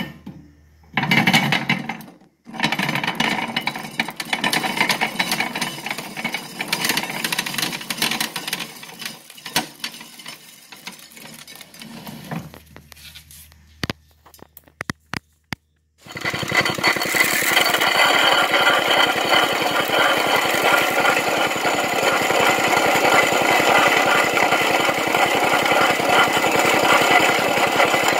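An A.H. Patch Black Hawk corn sheller stripping ears of corn, an irregular clattering with short pauses between ears. A little over halfway through it gives way to a steady, rapid machine sound: a 1939 Briggs & Stratton Model A single-cylinder engine running and driving a C.S. Bell No. 2 grist mill by belt as shelled corn is poured into the hopper.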